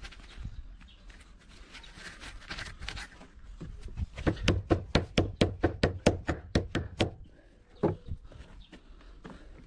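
A fast, even run of hammer strikes on wood, about five blows a second for some three seconds, starting about four seconds in. A couple of single knocks follow, after light handling noise before the run.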